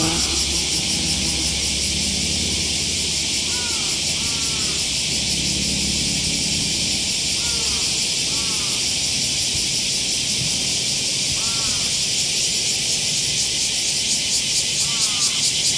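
Cicadas singing in a steady, shrill chorus that pulses more strongly near the end. A bird calls in pairs of short arching notes every few seconds, and a brief low wing buzz comes at the start as a sand wasp flies in low over the sand.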